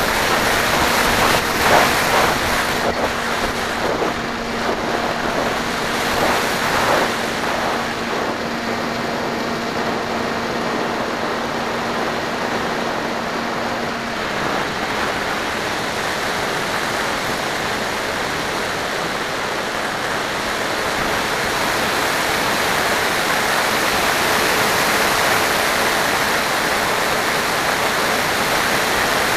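Wind rushing over the onboard camera's microphone on an FPV aircraft in flight, with a faint steady motor hum that shifts pitch about halfway through.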